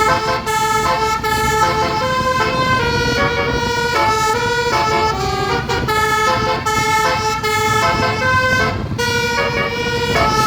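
Bus telolet horn, a Basuri-type multi-trumpet air horn, playing a melody: several notes sound together and step to new pitches every fraction of a second, over a low rumble.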